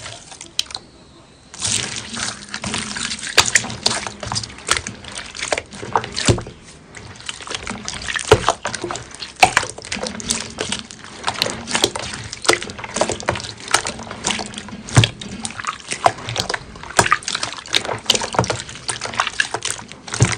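Hands squeezing and kneading clear slime under water in a basin of tiny beads: wet squelching and sloshing full of irregular crackling pops, starting about a second and a half in.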